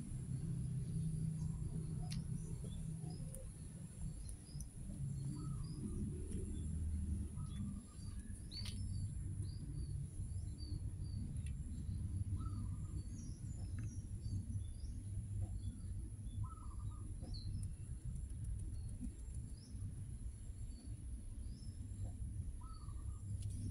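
Small birds chirping in short, scattered calls, over a steady low rumble.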